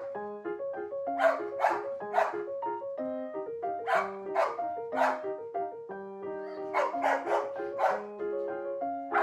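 Labrador retriever barking repeatedly in short runs of two to four barks, protest barking at being shut behind a baby gate. Background piano music plays under the barks.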